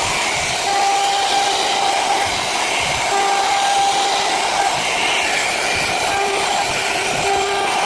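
Electric woodworking power tool running continuously: a loud, steady whirring hiss with a whine that fades in and out.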